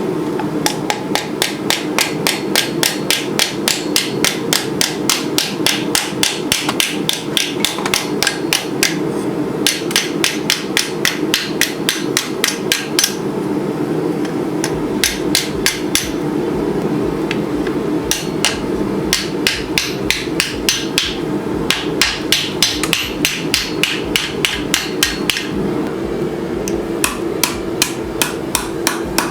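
Hand hammer striking hot steel on an anvil, about three blows a second in runs with short pauses, as a clamshell sword guard is bent to shape. A steady rushing sound from the running forge lies underneath.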